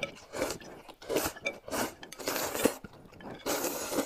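Close-up eating and slurping from a bowl held at the mouth, in about five short bursts, with a light clink of bowl or utensils.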